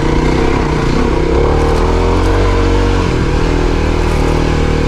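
Dirt bike engine running under throttle, its revs rising and falling.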